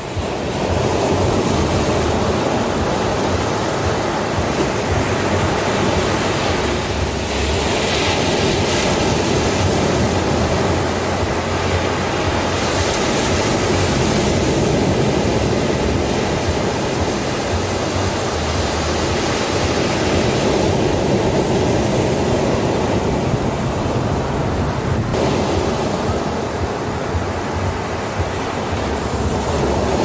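Ocean surf breaking on a sandy beach: a continuous wash of waves and foam running up the sand, with the hiss brightening as bigger waves break, about a quarter of the way in and again near the middle.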